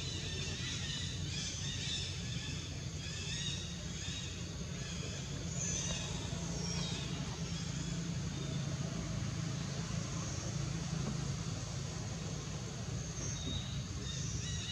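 Steady low hum, with scattered high-pitched calls mostly in the first half and again near the end.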